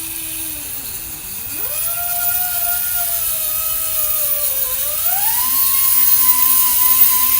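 A small high-speed motor, like an air or electric power tool, whining as it runs. Its pitch climbs sharply about a second and a half in, sags slowly, then rises again and holds steady from about five seconds in, over a hiss that grows louder.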